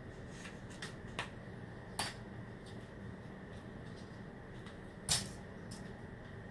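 A few short, sharp clicks and taps of small repair tools and the iPhone's parts being handled while the screen is pried open, the loudest about five seconds in, over a steady faint hum.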